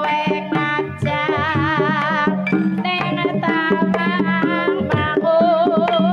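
Traditional Javanese barongan (ebeg) accompaniment music: steady drumming under a melody line that wavers with strong vibrato and shifts pitch every second or so.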